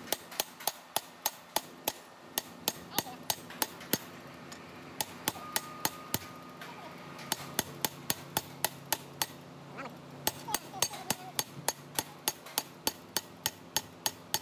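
Sharp taps at about three a second, with two short pauses, as the eccentric input shaft of a cycloidal pinwheel reducer is worked down into its pin-roller housing.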